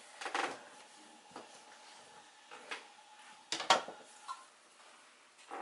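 Quiet kitchen handling noises: a few light knocks and rustles, the loudest a sharp clack of a chef's knife set down on the granite countertop about three and a half seconds in, over a faint steady hum.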